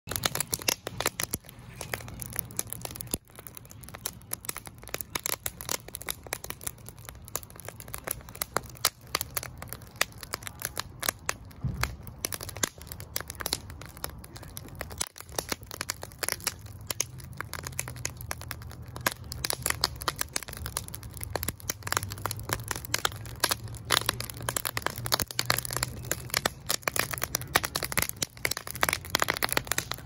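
Wood fire of split logs crackling and popping, a dense irregular run of sharp snaps over a low steady rumble.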